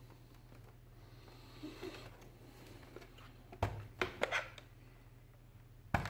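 A few sharp knocks and clicks of hard plastic and a tool being handled: one about halfway through, a quick cluster just after it, and another near the end. A low steady hum runs underneath.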